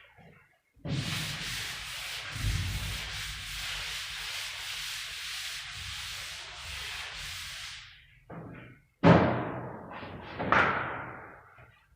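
Hand sanding of dried joint compound on a gypsum board ceiling with 150-grit sandpaper on a sanding block: a steady scraping rub of repeated strokes for about seven seconds, then two short, louder bursts near the end.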